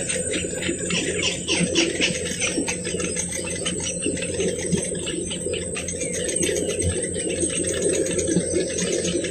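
Striated heron chicks begging at the nest with rapid, repeated clicking calls, over a steady high-pitched whine.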